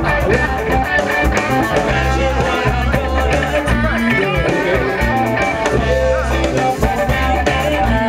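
Live funk-rock band playing: drum kit and electric guitar over a steady groove of deep bass notes, with singing into microphones.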